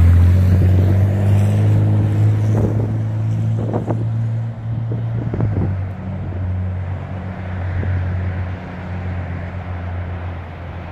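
A steady low engine drone that fades slowly, with a few dull knocks as road traffic crosses the railroad grade crossing.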